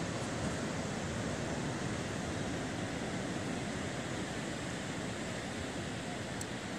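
Steady rushing noise of wind buffeting the microphone, mixed with the wash of surf breaking on the shore.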